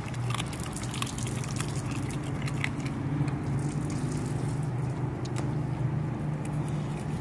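Scattered small wet clicks and smacks from a dog licking and mouthing a raw whole halibut, over a steady low mechanical hum.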